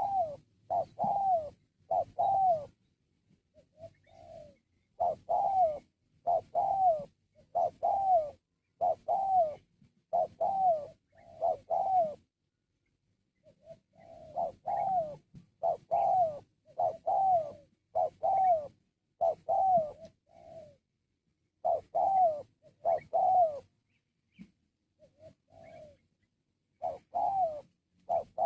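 Spotted dove (tekukur) cooing: bouts of short coos, each note rising and then falling in pitch, with brief pauses between the bouts.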